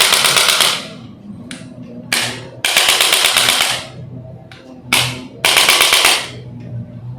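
Rapid mechanical clicking in bursts from a handheld percussive device: each group is a short burst followed by a longer one of about a second, heard in the first second, again about two seconds in, and again about five seconds in.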